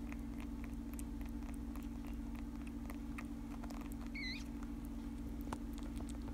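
Faint scattered clicking of a newborn cottontail rabbit suckling at a miracle nipple on a feeding syringe, over a steady low electrical hum. A short faint high chirp about four seconds in.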